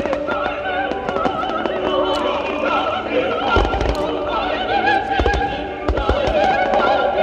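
Orchestral music with an operatic singing voice, with fireworks shells bursting over it: deep booms about halfway through and twice more later on.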